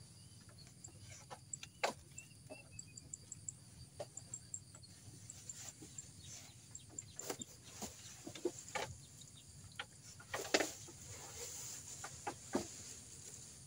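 Quiet outdoor ambience: scattered light clicks and taps from fishing rods being handled on a wooden platform, with faint high bird chirps and calls in the background.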